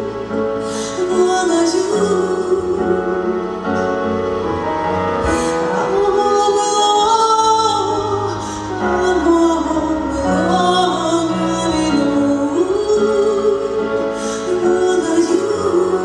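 A woman singing live into a microphone with long held notes, over sustained electric keyboard chords.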